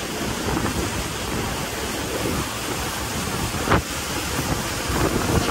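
Wind buffeting the microphone and water rushing past the hull of a boat running under way, with the engine's drone blended in underneath. A single brief knock about three-quarters of the way through.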